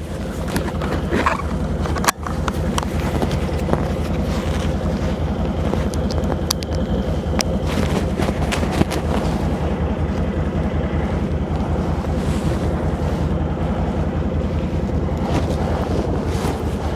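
Can-Am Outlander Max ATV engine idling steadily while the machine sits at the foot of the ramps, with one sharp knock about two seconds in.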